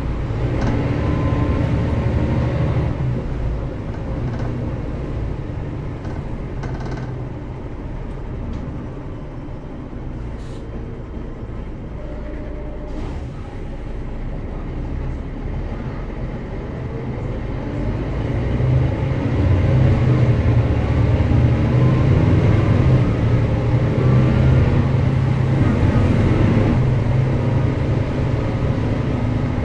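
Mercedes-Benz O405GN² articulated bus's engine running as the bus drives. It runs steady and quieter through the middle, then from about two-thirds of the way in it gets louder and rises in pitch as the bus accelerates.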